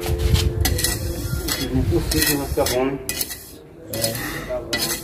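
Steel mason's trowel scraping and clinking against mortar and hollow ceramic bricks in a series of short, irregular strokes.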